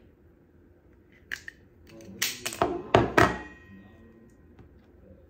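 Small plastic nail tips clicking and knocking as they are handled on a desk. There is a light click a little over a second in, then a quick run of louder sharp knocks around two to three seconds in, the last ringing briefly.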